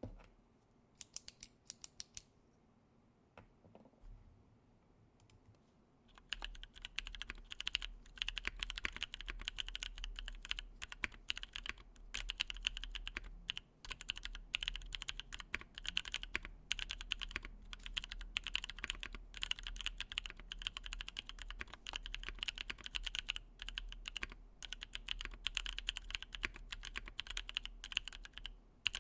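Matrix 8X V2.2 mechanical keyboard being typed on, with lubed Paco switches (Halo Clear stems in NovelKeys Cream housings), an aluminium plate and GMK keycaps. A few scattered keystrokes come first, then steady fast typing from about six seconds in.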